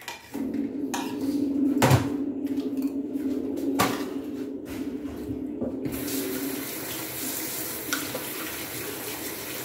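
Water running from a tap, at first with a steady low hum under it, then a brighter, even hiss from about six seconds in. Two sharp knocks come near the two- and four-second marks.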